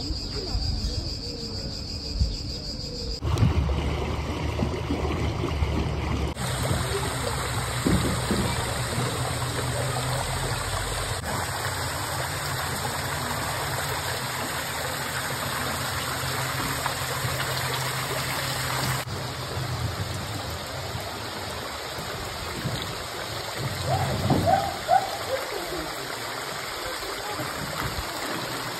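Steady rushing and splashing of water trickling down a mossy cliff face into a lake. For the first three seconds, before a cut, insects give a steady high shrilling.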